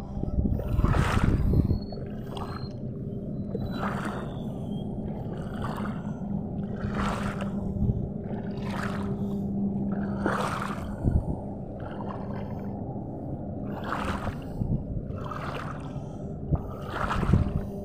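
Shallow seawater splashing in repeated strokes about every second and a half, as someone wades through it, over a steady low hum.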